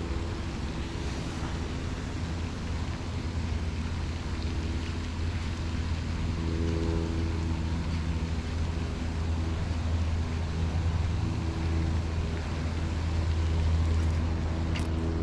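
Steady low engine-like hum with a haze of wind or outdoor noise, and one sharp click near the end.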